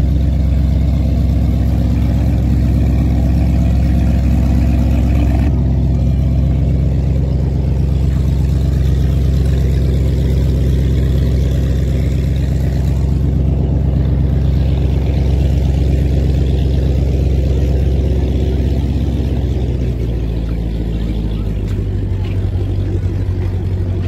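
Jetboat engine running with a steady low drone, shifting lower in pitch about twenty seconds in.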